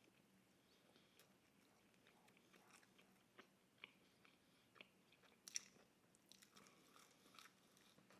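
Faint close-up sounds of a person chewing pizza: soft mouth clicks and light crunches scattered through, the sharpest about five and a half seconds in.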